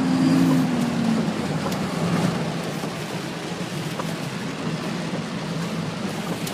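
Cummins diesel truck engine running under load while driving through mud, its pitch dropping in the first second or so and then holding a steady low drone. A steady hiss runs underneath.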